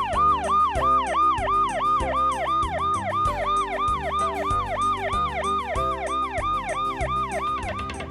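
Ambulance siren sound effect: a fast, repeating falling wail, about three and a half cycles a second, over background music with a stepping bass line. It stops just before the end.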